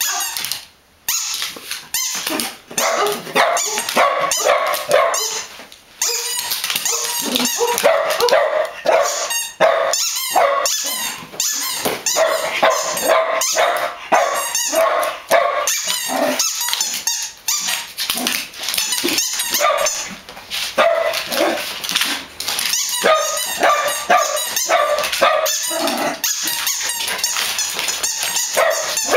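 Dogs barking over and over in quick, overlapping barks, with only brief pauses.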